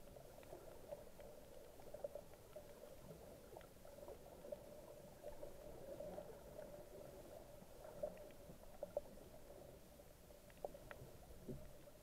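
Faint underwater sound heard through a camera's waterproof housing: a steady low hum with a scattering of small clicks and ticks.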